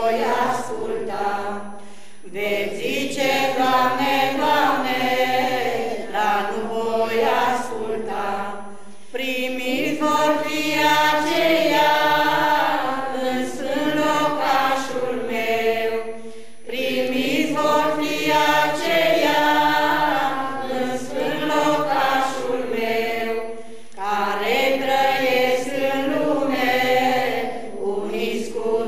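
Church choir of many voices singing a hymn unaccompanied, in long phrases of about seven seconds with brief breaks between them.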